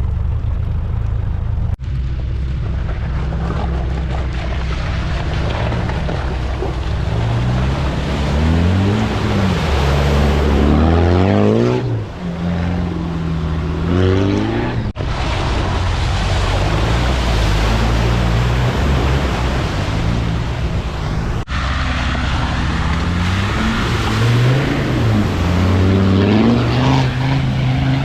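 Off-road 4x4 engine revving up and down under load, its pitch repeatedly rising and falling over a loud rushing noise. The sound breaks off abruptly and resumes several times.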